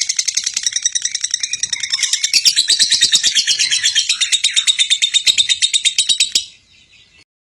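Lovebird ngekek: a long, fast chattering trill of sharp, evenly repeated chirps, more than ten a second, that breaks off abruptly about six and a half seconds in. Fainter calls from other birds sound underneath.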